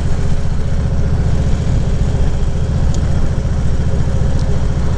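2014 Harley-Davidson Ultra Classic Limited's V-twin engine running steadily at cruising speed, its low pulsing exhaust mixed with wind noise on the rider's microphone.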